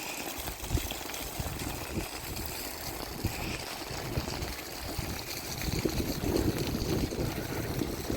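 Steady rushing of water with a crackly low rumble underneath, growing a little louder after about six seconds.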